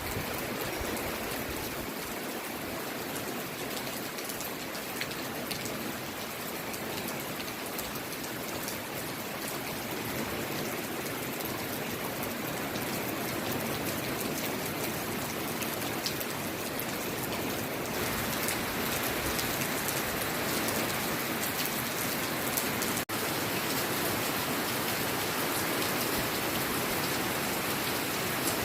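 Heavy rain falling in a steady, even hiss, with a momentary break about two-thirds of the way through.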